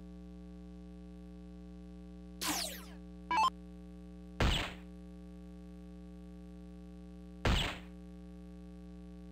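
Electronic soft-tip dartboard sound effects over a steady electrical hum. A falling sweep and a short electronic blip come between two and four seconds in. Then two sharp hit effects about three seconds apart, as darts score in the bull.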